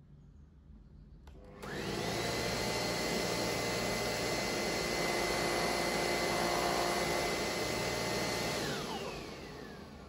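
Jimmy BX7 Pro UVC bed vacuum cleaner switched on with a click, its motor spinning up within a moment to a steady high-pitched whine over a rush of air. Near the end it is switched off and the whine falls in pitch as the motor spins down.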